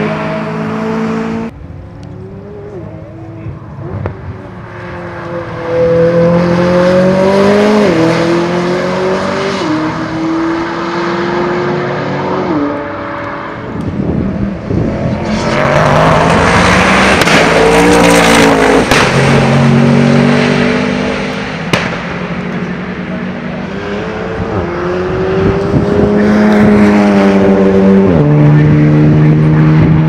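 Modified race cars lapping a circuit, engines revving hard and accelerating past. The pitch climbs and drops back at each upshift. The loudest pass comes about halfway through, and another car climbs through its gears near the end.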